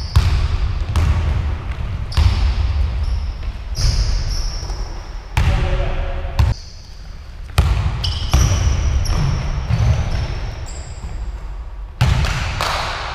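A basketball bouncing on a hardwood gym floor during a half-court game, with irregular thuds and short squeaks of sneakers on the wood; a brief lull a little past the middle.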